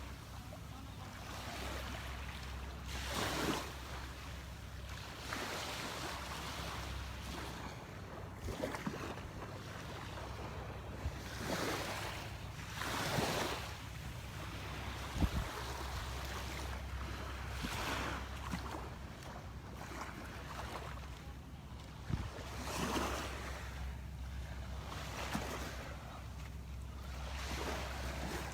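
Small surf washing onto a sandy beach, each wave swelling and fading every few seconds, over a low rumble of wind on the microphone. Two brief knocks are heard, about halfway through and again later.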